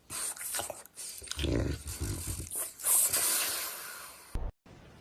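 A dog's sounds, followed about three seconds in by a loud hissing noise that fades away, ending in an abrupt cut.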